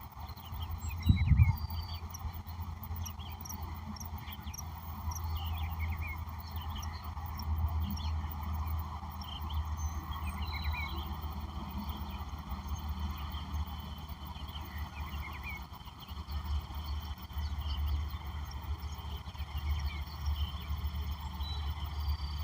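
Wild birds chirping in short scattered calls over a steady low rumble, with one loud thump about a second in.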